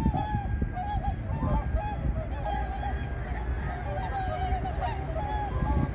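A flock of whooper swans calling: many short honking calls overlapping one another throughout, over a steady low rumble.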